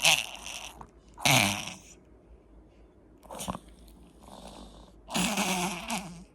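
A small dog with a congested, runny nose forcing air out through it in short, wet, noisy bursts, about four of them, the longest near the end. The sounds are typical of rhinitis.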